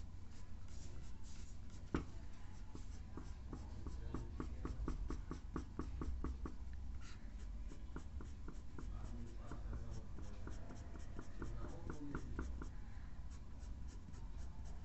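Graphite pencil shading on paper: quick, repeated back-and-forth strokes scratching across the sheet, with one sharp tick about two seconds in.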